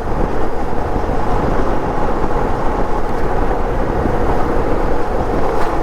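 Motorcycle running at a steady cruising speed, its engine mixed with road and wind noise.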